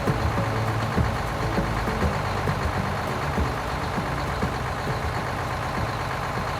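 Truck engine idling: a steady low rumble with irregular low knocks, easing off slightly toward the end.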